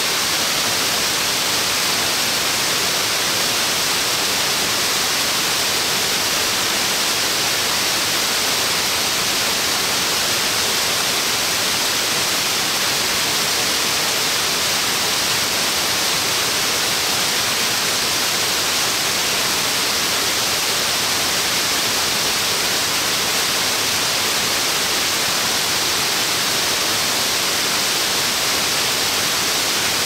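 A 60 m waterfall spilling in many thin streams down a stepped rock face: a steady, bright hiss of falling water that never changes.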